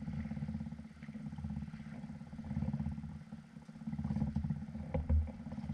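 A steady low motor hum runs throughout, with a short thump about five seconds in.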